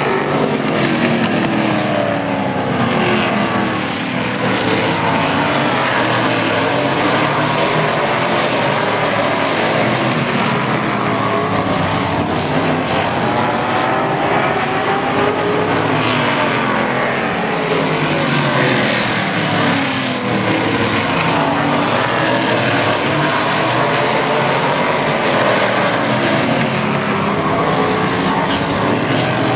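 A field of stock cars circling a short oval, several engines overlapping, their pitches rising and falling in sweeps as the cars accelerate through the turns and pass by.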